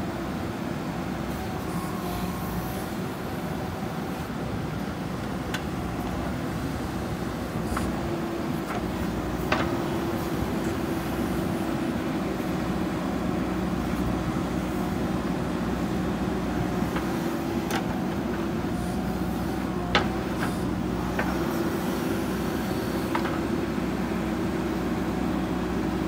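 JCB 3DX backhoe loader's diesel engine running steadily under hydraulic load as the backhoe arm digs soil, its note shifting slightly. A few sharp metallic clanks from the bucket and arm, the loudest about ten and twenty seconds in.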